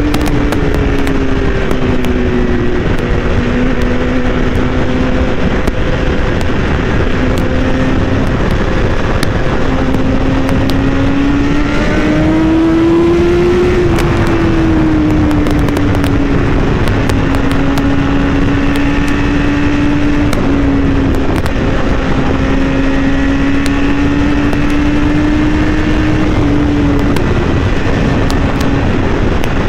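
BMW S1000RR inline-four engine heard from on board at highway speed, with a steady drone under constant wind rush. The engine note climbs about ten seconds in as the throttle opens, then eases back down and holds steady.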